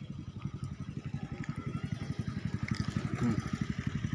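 A small engine running nearby with a fast, even putter, growing a little louder about halfway through.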